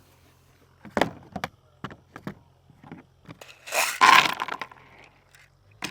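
A box being handled and forced open: several short, sharp clicks and knocks, then a louder rough tearing noise about four seconds in.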